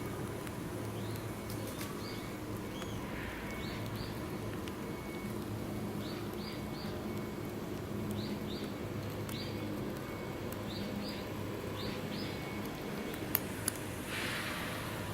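Small birds chirping: short high calls, often in quick pairs, repeated every second or so over a steady low hum. Near the end come two sharp clicks and a brief rush of noise.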